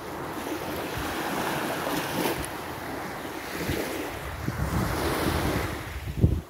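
Wind buffeting the phone microphone in irregular gusts over small lake waves washing on a sandy shore, with a sharp thump near the end.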